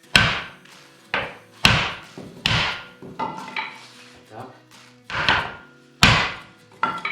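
Metal knocks and clanks on a steel fireplace door as it is test-fitted on its hinges. There are about eight irregular sharp hits, each with a short ringing tail.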